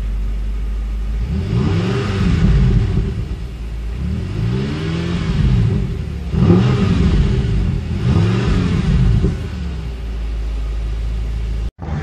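BMW M6's 4.4-litre twin-turbo V8 idling, then revved several times in neutral, each blip rising and falling back to idle. Heard from inside the cabin.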